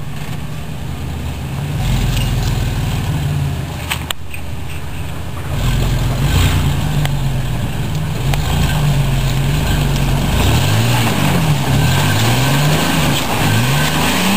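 Solid-axle-swapped Chevy S10's engine working under load as it crawls through deep mud, then revved up and down several times in quick succession over the last few seconds.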